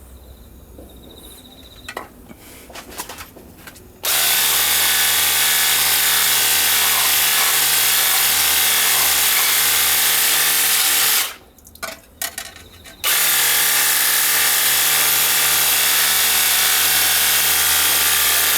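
Battery-powered 21 V handheld pressure washer running at full power: a steady motor-and-pump whine with a loud hiss of spray. It starts after a few light clicks, stops for about two seconds, then runs again.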